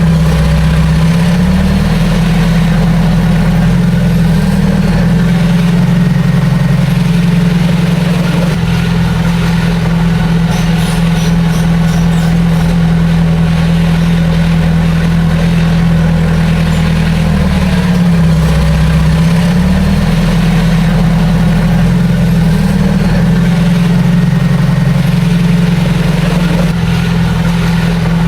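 Heavy construction machine's diesel engine running steadily, its pitch dipping briefly twice, as if loaded or throttled back.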